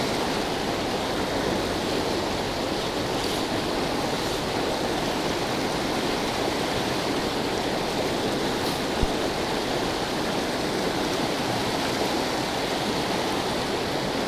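Fast, rocky trout stream rushing through a whitewater riffle close by, a steady loud rush of water. One brief knock partway through.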